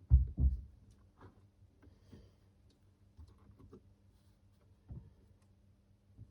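Two quick thumps, then scattered light clicks and knocks, over a faint steady hum.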